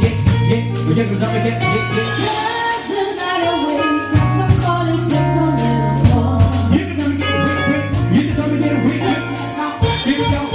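Live band playing upbeat dance music: a singer over keyboards, low bass notes and a drum kit keeping a steady beat.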